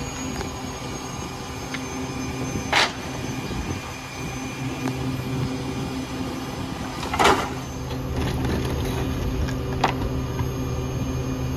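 Diesel Pak-Mor rear loader garbage truck idling steadily, with loud knocks of wooden construction debris being thrown into its hopper, one about three seconds in, another about seven seconds in, and a lighter one near ten seconds.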